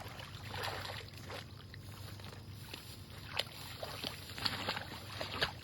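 Water splashing and sloshing, with several sharp knocks and clicks in the second half, over a low steady hum.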